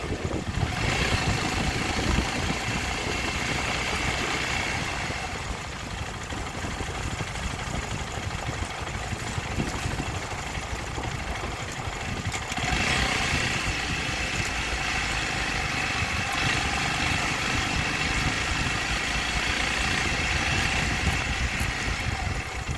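Dirt bike running along a gravel road: steady engine and road noise, dipping a little about five seconds in and growing louder again from about thirteen seconds in.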